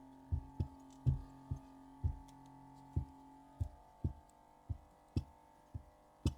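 Steady low hum of a heat plate LCD screen separator machine, fading out about halfway through, under a string of soft low thumps about two a second.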